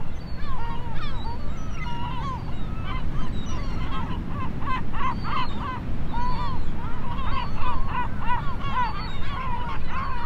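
A flock of gulls calling, many short bending cries overlapping throughout, over a steady low rumble.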